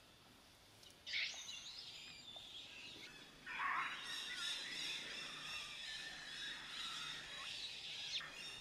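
Baby macaque screaming in distress as an adult female bites it. A sudden shrill scream comes about a second in, and a second scream at about three and a half seconds sweeps down and then carries on as a high, unbroken wail.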